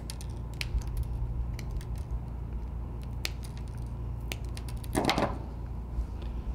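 Small angled cutters snipping the copper conductors of a Cat6a cable flush at a plug's lacing cap, one after another: a run of sharp little clicks over a steady low hum. A brief, louder rustle comes about five seconds in.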